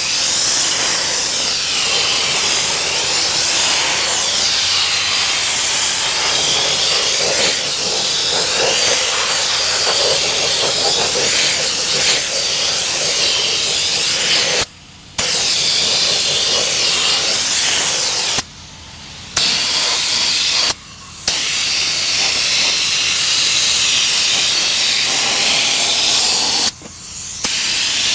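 Compressed-air Fluid Film undercoating spray gun spraying: a loud, steady hiss of air and oil mist that stops briefly four times and starts again. The nozzle gives a very fine mist, too fine in the owner's view.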